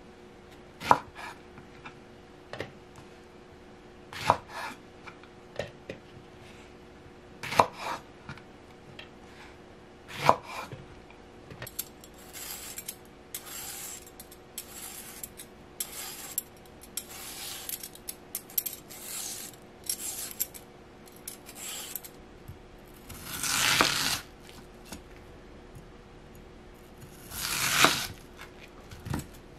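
Kitchen knife chopping okra on a wooden cutting board, with a sharp knock every second or two. Then a peeler scrapes the skin off a Japanese mountain yam (yamaimo) in quick short strokes. Near the end come two long knife slices through the yam down to the board, over a faint steady hum.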